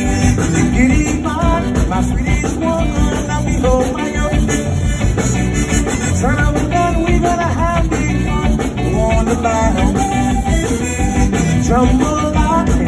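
Background music: an upbeat song with a band playing.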